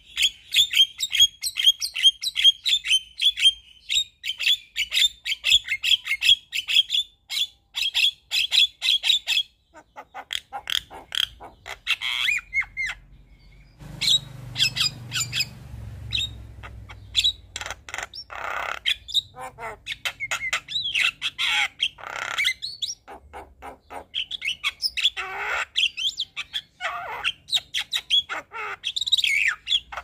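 Javan myna singing: a fast chattering run of repeated high notes for the first third, then a varied stream of gliding whistles and harsh squawking notes.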